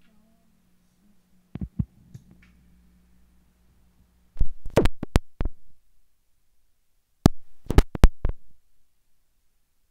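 Handling noise: short, sharp knocks and clicks as the resonator guitar and its strap are handled, not played. Two come about one and a half seconds in, then a quick cluster of several near the middle and another near the end.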